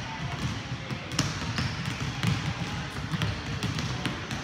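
Several basketballs being dribbled on a hardwood gym floor: overlapping, irregular bounces at different paces, echoing in the hall.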